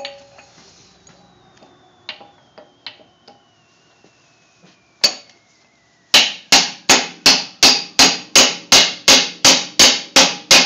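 A hammer driving a bushing into the pin bore of a Bobcat excavator arm's thumb mount, striking through the steel pin used as a drift. About six seconds in, after a few light metal clicks and one sharp tap, it settles into a steady run of about a dozen blows, nearly three a second.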